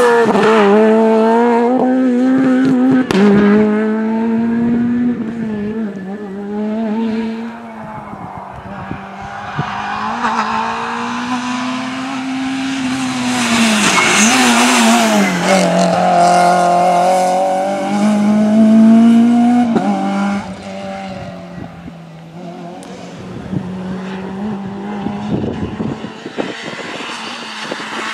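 Rally cars accelerating hard through corners on a tarmac stage, one after another. The engine note climbs and drops repeatedly as the drivers rev up, lift off and change gear.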